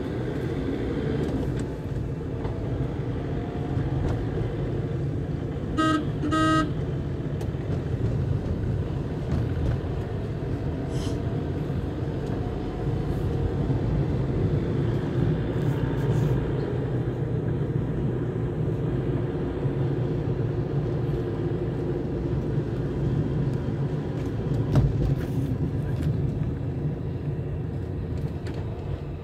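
A car driving along a paved road, heard from inside: steady engine and tyre rumble. About six seconds in, a vehicle horn gives two short beeps.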